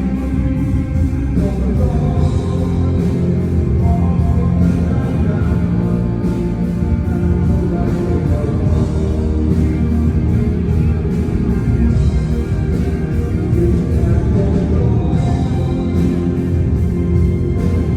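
Rock band playing during a sound check: electric guitars and drums keeping a steady beat, with singing.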